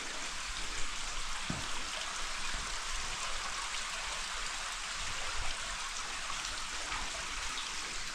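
Steady rush of running water, an even hiss with no lull.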